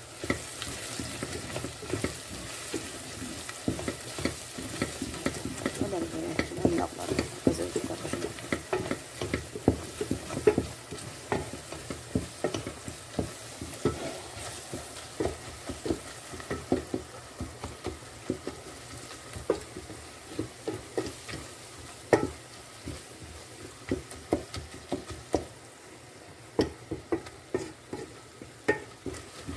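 A spoon stirring and scraping onions with oil and berbere in a metal pot as they fry, making many sharp clicks against the pot over a steady sizzle. The clicking is busiest in the first third.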